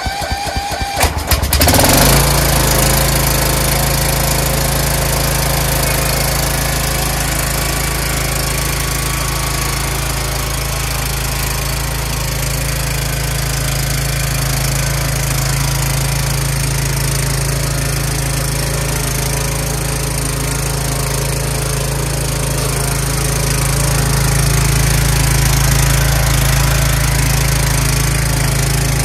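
Craftsman lawn tractor's small engine cranking for about two seconds, catching, then running steadily as the tractor drives, a little louder near the end.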